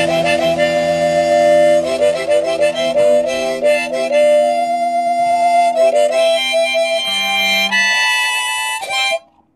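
Instrumental ending of a ska punk song: a melody over held chords, stopping abruptly about a second before the end.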